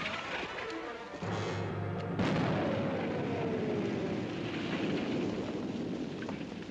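Battle sound effects with music: a sharp artillery blast about two seconds in, followed by a long falling whistle in the style of an incoming shell.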